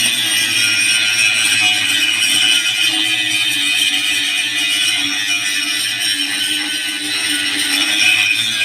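Power grinder running steadily under load as it grinds down a repair, giving a loud, high-pitched whine with a harsh hiss.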